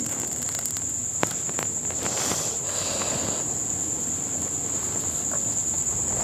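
Crickets chirring in one steady, unbroken high trill, with a single sharp click a little over a second in.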